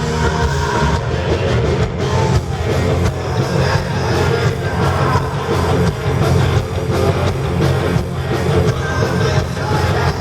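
Heavy metal band playing live: distorted electric guitars, bass and drums, loud and continuous.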